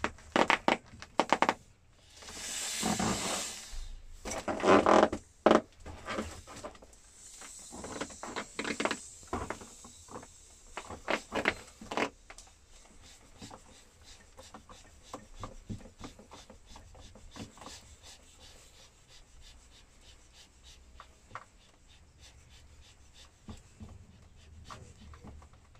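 Blue vinyl inflatable lilo squeaking and rubbing under a person's boots, with a run of knocks and taps that is busiest and loudest in the first twelve seconds, then thins to faint scattered ticks.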